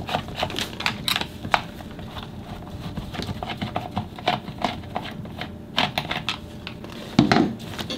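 Irregular small clicks and taps from a screwdriver backing screws out of an Echo CS-400 chainsaw's plastic recoil starter cover, and from the loose screws being handled.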